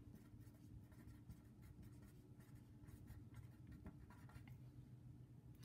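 Faint scratching of a pen writing words on paper, in short irregular strokes.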